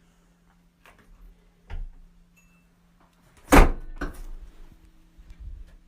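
Faint knocks in a quiet room, then one sharp, loud bang of a door about three and a half seconds in, followed by soft low thumping.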